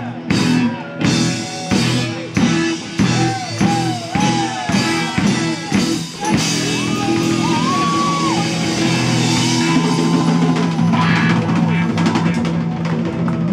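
Live rock band playing, with electric guitar, bass and drum kit. Over the first six seconds the drums hit a steady beat, about one strike every 0.7 s, under gliding bent guitar notes. From about six seconds in the band holds sustained chords with fewer drum hits.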